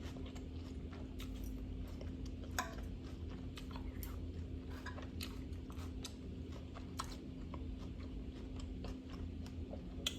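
Close-miked chewing of a salad of raw vegetables and grilled salmon: irregular crisp crunches and small wet clicks from the mouth, over a steady low hum.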